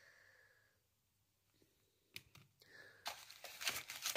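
Small items being handled in a box packed with crinkle-cut paper shred: a couple of light taps a little after two seconds, then about a second of papery rustling near the end.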